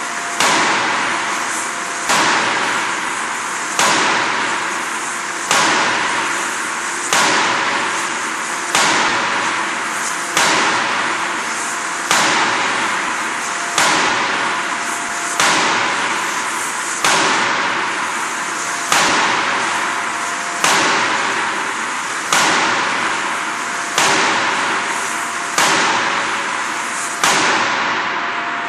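C86-series 400 kJ hydraulic closed-die forging hammer striking a red-hot flange blank in steady rhythm, about one blow every 1.7 seconds, some seventeen blows in all. Each blow is a sharp bang with a ringing tail, over a steady machine hum.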